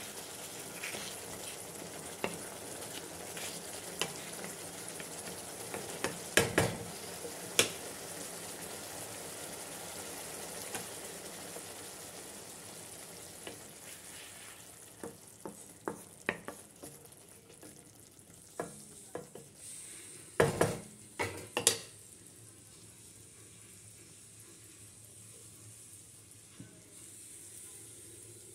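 Egg, potato and cauliflower curry sizzling in a metal kadai while a spatula stirs it, scraping and knocking against the pan. The sizzle fades over the second half, with a few sharp knocks about six to seven seconds in and again around twenty to twenty-two seconds in.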